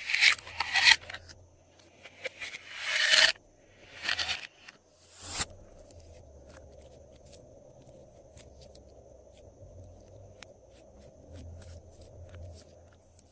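Glossy slime being worked by hand with add-ins mixed in: about five loud, sticky scraping and crackling bursts in the first five seconds, then only faint scattered clicks and crackles.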